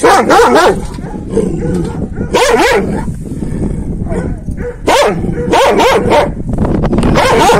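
Kangal shepherd dog barking, about five loud drawn-out barks with some time between them. The owner thinks it has probably heard wolves.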